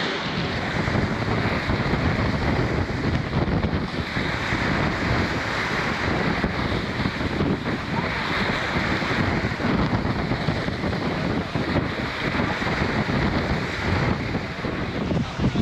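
Wind rushing over the microphone with the wash of the sea, aboard a wooden sailing schooner.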